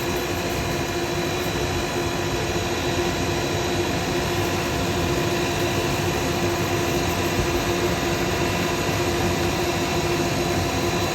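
Workshop dust extractor running with a steady hum and rush of air, over a spinning wood lathe while a pen blank is dry-sanded with 400-grit paper.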